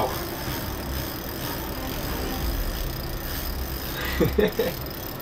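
A spinning reel being cranked as a hooked burbot is reeled in, over the steady hum of the ice shack's furnace.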